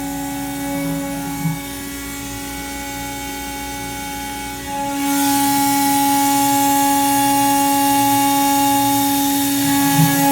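Machine tool cutting aluminium: a steady whine made of several fixed tones over a mechanical hum. About halfway through it grows louder and a hiss rises in the high range.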